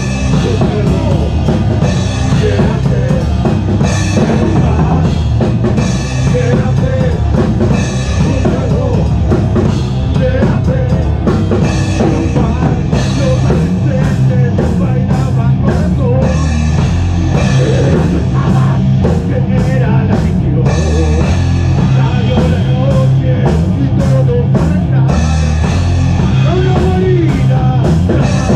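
A doom/stoner rock band playing loud and steady, drum kit pounding under heavy bass and guitar, with wavering melodic lines. It is recorded on the room's ambient sound by a GoPro in the rehearsal room.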